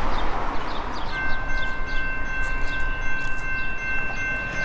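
Diesel locomotive air horn, from a Norfolk Southern GE AC44C6M, sounding one long steady multi-note chord that starts about a second in and is held. The train is approaching but not yet in sight.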